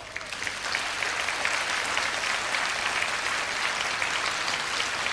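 Large audience applauding: the clapping breaks out, swells within about the first second, then holds steady.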